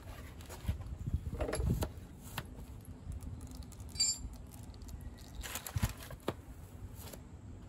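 Paper rag rustling and crinkling under a gloved hand, with scattered small clicks and a brief metallic clink about four seconds in.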